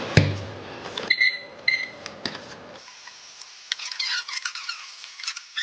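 Two short electronic beeps among scattered small clicks and taps, followed by a run of light, high-pitched clicking and rustling.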